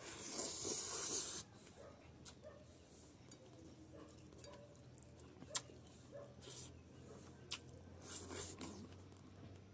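Close-up eating sounds: a man chewing mouthfuls of rice and boiled pork fat eaten by hand. Wet mouth noises fill the first second and a half and come again near the end, with a couple of sharp lip smacks in between.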